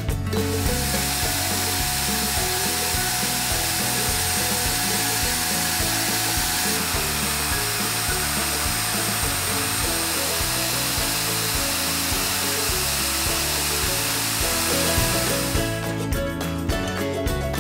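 Khind VC3668 wet and dry vacuum cleaner running steadily with a fixed whine as its small spray head is worked over carpet, with background music under it. It starts about half a second in and stops about two seconds before the end.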